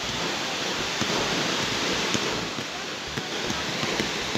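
Fireworks: a row of spark-fountain gerbs hissing steadily, with dense crackling and a few sharp pops from small aerial shells.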